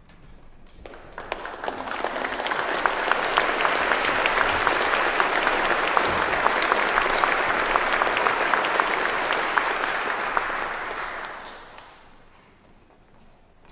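Concert-hall audience applauding: the clapping swells over the first couple of seconds, holds steady, then dies away about eleven seconds in.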